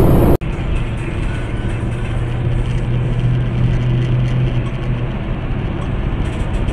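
Steady road and engine noise heard from inside a moving car, with a low drone that fades out about two-thirds of the way through, while a semi-trailer truck runs close alongside. A sharp dropout just under half a second in breaks the sound into two different recordings.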